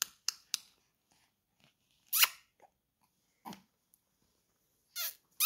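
Short mouth sounds: a few quick clicks, then brief breathy hisses like "psst" about two seconds in and twice near the end.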